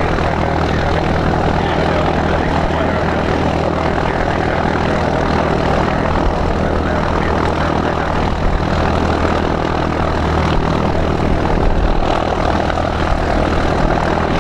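Cessna 140 light plane's piston engine and propeller running steadily, an even drone with no change in pitch or level.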